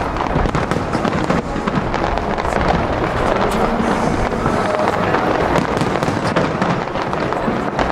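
Aerial fireworks bursting over the harbour in quick, overlapping succession. It is a dense, unbroken stream of cracks and bangs at an even, loud level.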